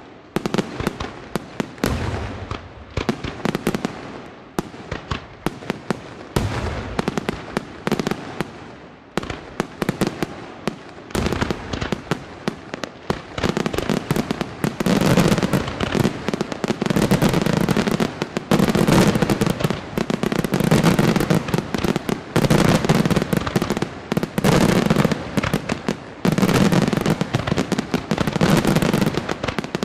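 Aerial fireworks display: many shells bursting in quick succession, a dense run of bangs and pops. The barrage thickens and grows louder about halfway through.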